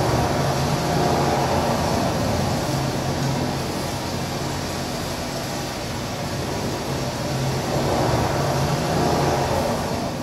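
Recorded train sound played as part of the performance: a steady low rumble and hiss, swelling about a second in and again near the end.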